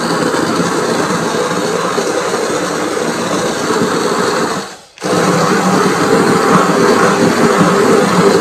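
Hand-held immersion blender running steadily, its blades churning through a thick pot of chunky apple-fig chutney to partly puree it. The sound cuts out abruptly for a moment about five seconds in, then the blending carries on.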